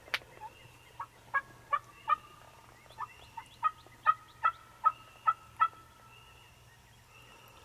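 Wild turkey yelping: a short run of four evenly spaced notes, then a longer run of about eight, roughly three a second. A sharp click sounds right at the start.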